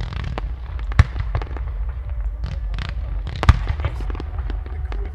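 Aerial fireworks display: a rapid, irregular run of shell bursts and bangs over a steady low rumble. Two bangs stand out, about a second in and about three and a half seconds in.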